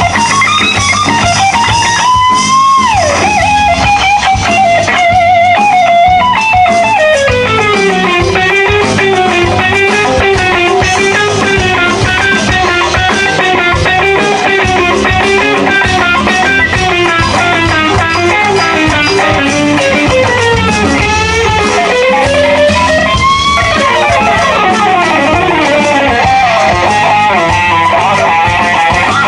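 Electric guitar solo: a lead line of long held notes with wavering vibrato, pitch bends and slides, and quick runs of notes above them. The line drops to a lower held note about seven seconds in and climbs again near the end.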